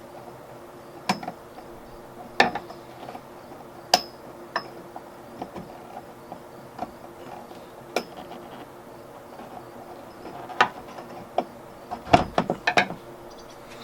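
Irregular metal clicks and clinks from hand work on a liftgate gas strut and a screwdriver: the strut's retaining clip is pried out and its end worked off the ball stud. Several quick knocks come close together near the end.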